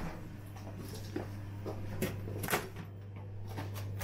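A few separate light knocks and clinks as ice is fetched for a glass, over a steady low hum.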